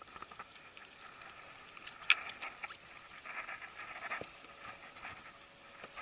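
Handling noises of a hooked bass and fishing gear on a boat: scattered clicks and rustles, with one sharp, loud click about two seconds in, over a faint steady high hum.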